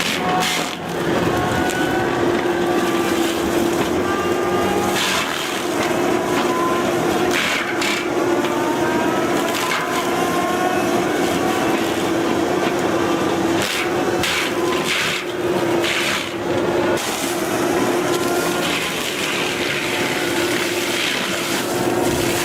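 Heavy forestry machine running steadily under load, with repeated sharp cracks and snaps of wood being broken or cut.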